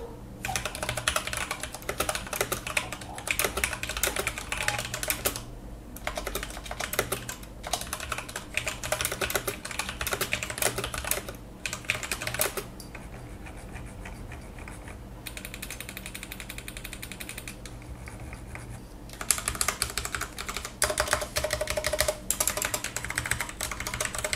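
Typing on an XPG Summoner mechanical keyboard with linear Cherry MX Silver switches and ABS keycaps: rapid key clicks in bursts separated by short pauses. Around the middle there is a quieter spell of fast, even ticking lasting a few seconds.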